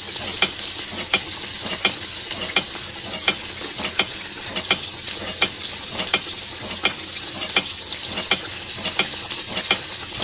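Food sizzling in a frying pan while a spatula stirs it, a steady frying hiss with a sharp click of the spatula against the pan about every three quarters of a second.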